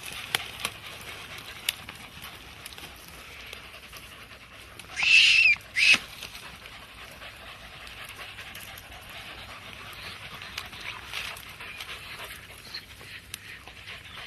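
Podengo hunting dogs panting, with one short, high, loud cry from a dog about five seconds in, followed by a sharp knock.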